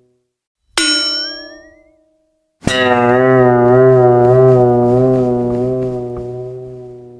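Cartoon comedy sound effects. A sudden plucked twang with a pitch sliding upward dies away within about a second. After a short gap, a long wavering tone with a strong vibrato starts abruptly and slowly fades out over about four seconds.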